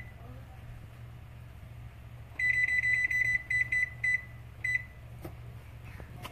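Whirlpool electric range's control-panel keypad beeping as the bake time is stepped up with the arrow key: a quick run of high beeps lasting nearly two seconds, then two single beeps, over a steady low hum.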